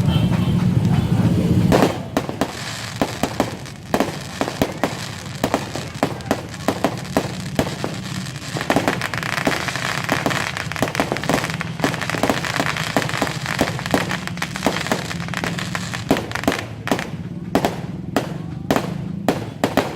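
Fireworks going off in a rapid, irregular string of sharp bangs and cracks, several a second, coming faster near the end. For about the first two seconds a loud steady noise covers them, then stops suddenly.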